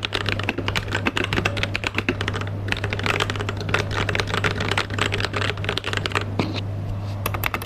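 Mechanical keyboard typed on rapidly, a dense run of clacking keystrokes with a couple of brief pauses, demonstrating the sound of its current keycaps. A steady low hum runs underneath.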